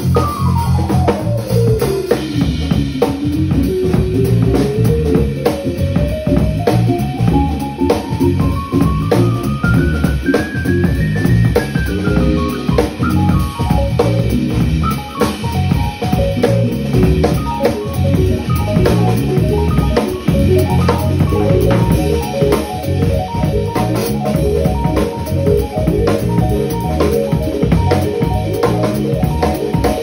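Band playing live: a drum-kit groove with kick and snare under electronic keyboards. A single melody line slides down at the start, climbs steadily for about nine seconds, then falls back.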